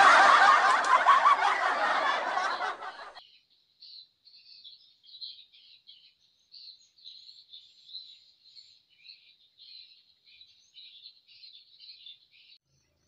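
Loud rustling and crackling of dry grass and straw for about the first three seconds, stopping abruptly. After it, only faint, irregular high-pitched chirping of small birds or insects is heard.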